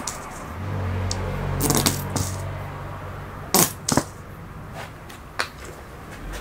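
A spoon clinking against the rim of a bowl several times as honey is scraped off it into mustard, the loudest a pair of sharp clinks about three and a half to four seconds in. A low hum runs under the first few seconds.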